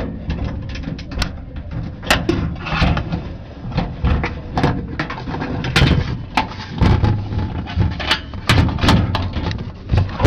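Irregular sharp metallic knocks and clatter of hand-tool work on an aluminum aircraft wing, about a dozen over a steady low rumble.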